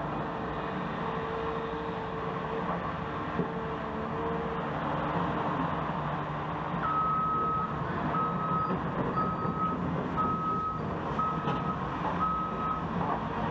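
Heavy construction vehicle's engine running steadily. About halfway through, its reversing alarm starts, beeping six times about a second apart.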